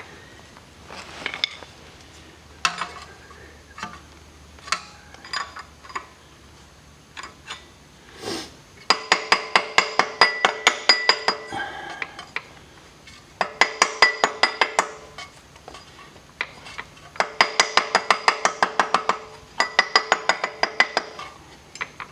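Ratchet wrench clicking in quick runs while backing out bolts on the front of a VG30 V6 engine, with metallic clinks between the runs. There are four runs of rapid, even clicks, each lasting one to three seconds, in the second half.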